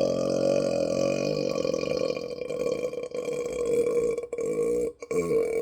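A person's long, deliberate burp, low-pitched and held steady for nearly five seconds. It breaks off briefly and starts again with a wavering pitch near the end.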